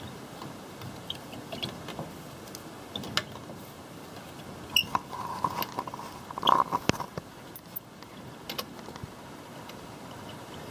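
Scattered metal clicks and clinks of hand tools working at a car wheel to take it off. Between about five and seven seconds in there is a busier run of clinks with a short high tone.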